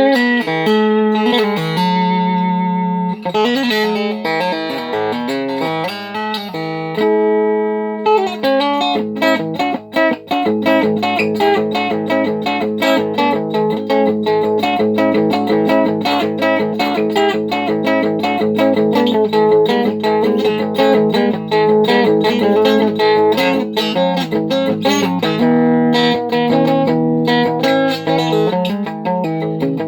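Evancho Solidbody Strummer being played: a melody picked over a steady droning low note. The first eight seconds or so are slower, single picked notes; from then on it is fast, even strumming.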